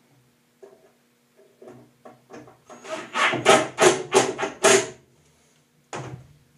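Cordless drill driving a screw into a hardwood case in a quick run of short bursts, the screw grinding into the wood. A single knock near the end as the drill is set down on the bench.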